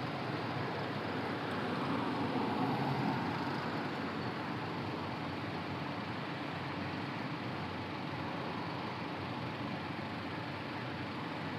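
Steady road traffic noise, swelling a little about two to three seconds in as a vehicle passes.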